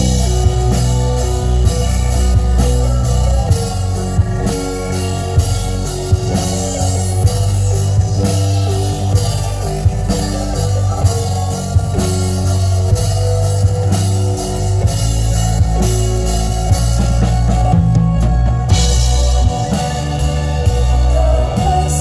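Live band playing synth-pop with drum kit, electric bass and accordion, the full band coming in at once right at the start over a steady beat and a driving bass line.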